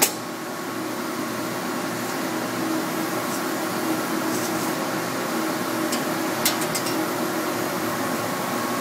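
Steady hum of an idling hydraulic press brake, its pump and motor running with a fixed drone. A sharp metallic click right at the start and a few light clicks about six and a half seconds in come from the bent sheet-metal hinge part being handled against the tooling.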